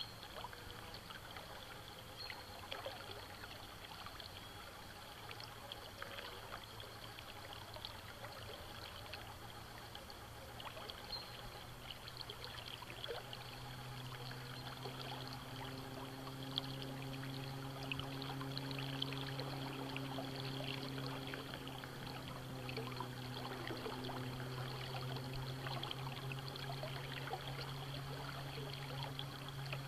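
River water running and trickling, with many small splashes and ticks. About halfway in, a steady low hum joins it and grows a little louder.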